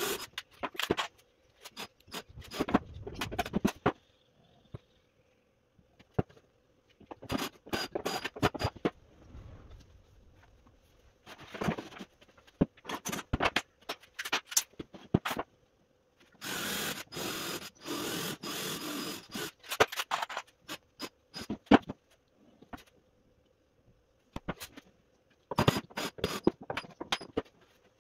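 Hands working on an MDF box: scraping, knocks and clicks as panels and tools are handled and set down, in several separate bursts, over a faint steady hum.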